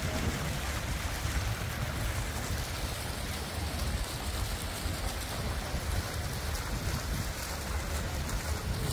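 Small water jets of a shallow plaza fountain splashing into the basin, a steady rush of water, with wind rumbling on the microphone.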